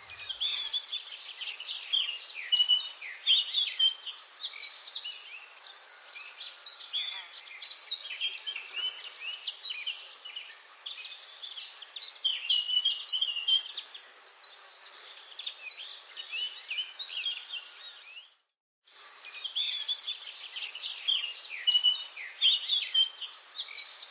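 A dense chorus of many birds chirping, with a brief gap about two-thirds of the way through.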